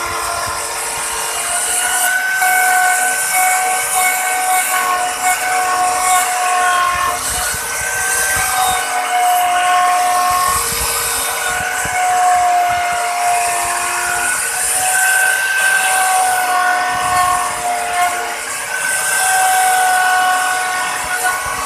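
Electric wood router running at full speed, its bit cutting a design into a wooden board: a steady high whine that wavers slightly in pitch as the bit takes the cut, over a hiss of cutting.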